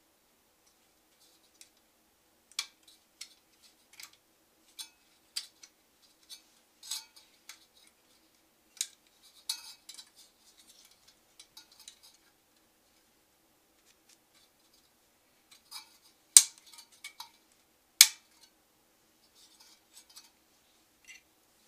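Wire fan clips clicking and snapping against the metal fins of a tower CPU cooler's heatsink as its fan is clipped on, in irregular sharp taps with two loud snaps near the end.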